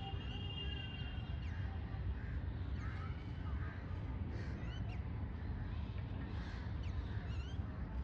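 Many birds calling at once, short chirps and harsh calls overlapping throughout, over a steady low rumble.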